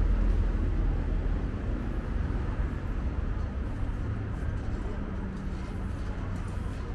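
City street ambience: a steady low rumble of traffic that slowly fades.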